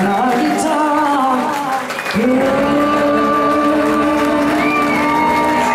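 Live band playing: a woman singing into a microphone over electric guitar and lap steel guitar. The notes are long and held, with a brief dip about two seconds in before a new note comes in.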